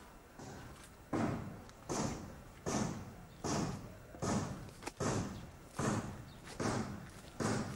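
Footsteps crunching through a thick layer of dry, curled plant litter at a steady walking pace: about nine crackling steps, one every 0.8 seconds or so, starting about a second in.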